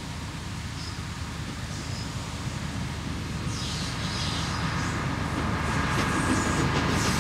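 Narrow-gauge diesel locomotive hauling a loaded sugar cane train approaching, its engine running with a low rumble that grows steadily louder. About six seconds in, clicking from the wheels on the track begins.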